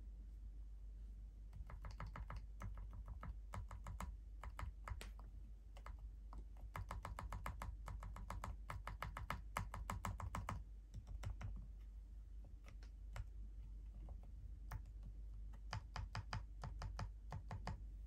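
Faint clicking of bare Aquaking V3 mechanical keyboard switches being pressed over and over by fingertips, with no keycaps fitted. The clicks come in quick irregular runs with short pauses.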